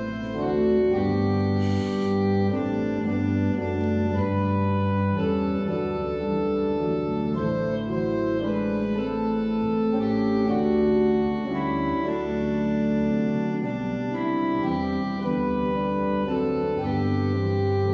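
Church organ playing an instrumental interlude of a hymn tune between verses: sustained chords that change every second or so over deep pedal bass notes.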